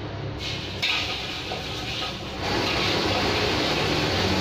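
Oil sizzling in a hot wok as liquid is poured in and the pan is worked. The hiss starts about half a second in and grows louder and fuller about two seconds later.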